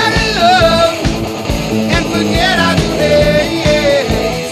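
Rock music with guitar and a steady beat, and a voice singing.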